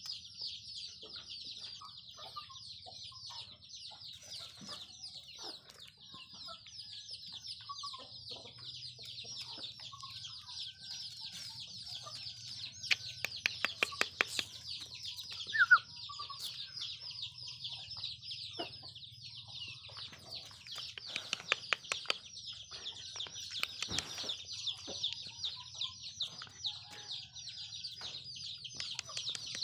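A flock of chicks peeping without a break in a dense, high chorus. There is a quick run of taps near the middle, followed by one short, louder call.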